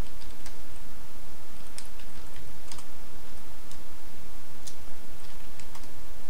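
Computer keyboard keys clicking in scattered, irregular keystrokes as commands are typed, over a steady background noise.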